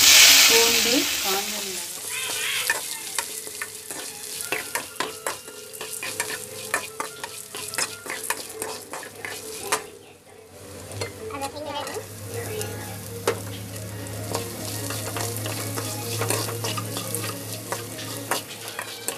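Chopped onions and curry leaves tipped into hot oil in a kadai, with a loud burst of sizzling at the start. Then steady frying, with a slotted spatula scraping and clicking against the pan as it stirs, and a brief lull about halfway through.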